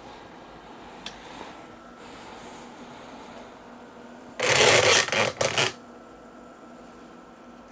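A brief clatter of small hard objects being handled, about a second long and breaking into a few quick pieces, a little past the middle, over a faint steady hum.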